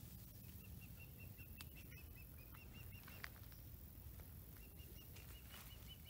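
Faint, rhythmic chirping call of a small wild animal: short high notes at about five a second, in two runs of a couple of seconds each, over quiet outdoor ambience.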